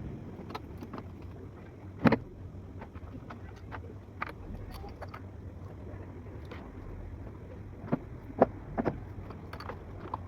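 Scattered sharp clinks and knocks of tools and parts being handled during throttle body work, over a steady low hum. The loudest knock comes about two seconds in, and three more come close together near the end.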